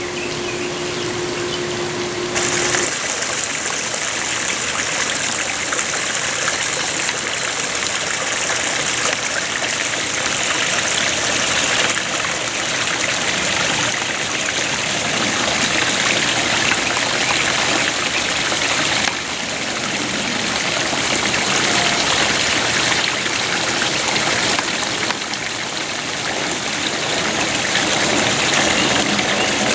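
Water running and trickling over rocks in a rock-lined garden stream, a steady rushing that shifts in tone a few times. A faint steady hum stops about two seconds in.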